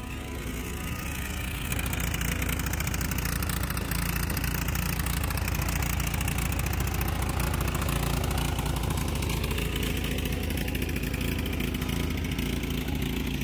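Kohler Command engine of a Craftsman riding lawn tractor running steadily as the tractor is driven along, getting louder about a second and a half in.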